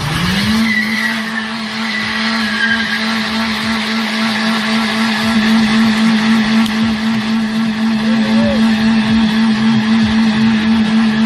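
Small hatchback's engine revved up in the first second and then held at a steady high pitch during a burnout, its tyres spinning on wet asphalt with some squealing.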